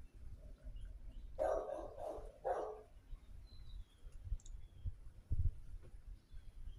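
A dog barking: three short barks in quick succession about one and a half to three seconds in, over a steady low rumble.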